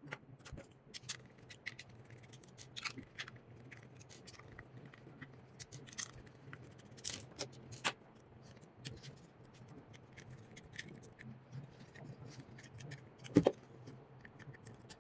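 Scattered clicks, scrapes and taps of plastic parts and tools as a smart speaker is taken apart, over a faint steady hum, with one louder knock about thirteen seconds in.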